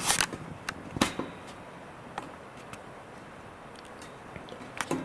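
A few short knocks and clicks of handling near the start and again about a second in, then quiet room tone.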